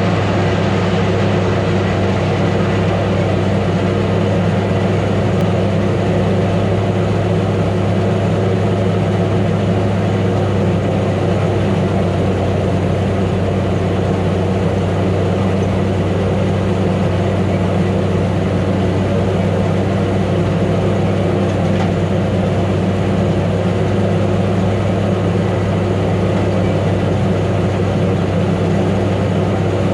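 Gleaner A2 combine running steadily, a constant low engine drone that does not change in pitch or level.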